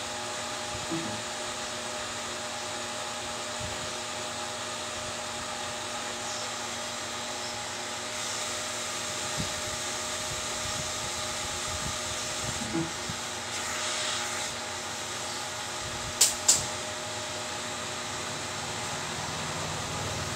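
Steady whirring background hum with a few faint held tones in it, like a fan running. Two sharp clicks come close together about sixteen seconds in.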